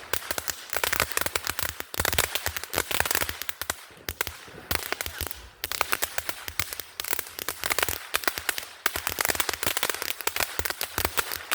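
Ground fountain firework burning: a hissing spray full of dense, rapid crackling pops that surges louder and softer every second or two.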